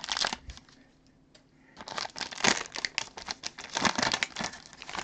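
Plastic wrapping crinkling as a trading card is unwrapped by hand. The crinkling stops for about a second after the start, then picks up again about two seconds in and keeps going.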